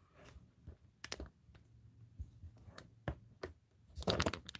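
Scattered light clicks and taps, with a brief rustle about four seconds in.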